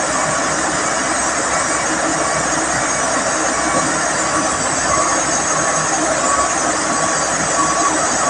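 Heavy diesel machinery running steadily, a dense mechanical noise with a strong hiss.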